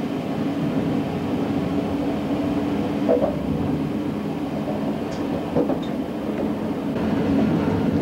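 Steady rumble of a moving passenger train heard from inside the carriage, with a few short clicks from the wheels.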